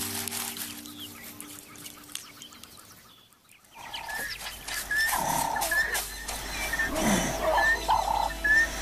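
Background music fading out over the first few seconds. Then animal calls: a run of short, evenly spaced chirps about twice a second, with a couple of whining calls that slide down in pitch.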